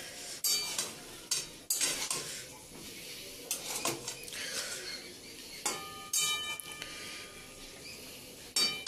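Metal spatula scraping and knocking against a metal kadai, stirring a thick broccoli and potato curry, with a light sizzle underneath. About six seconds in, one knock leaves the pan ringing briefly.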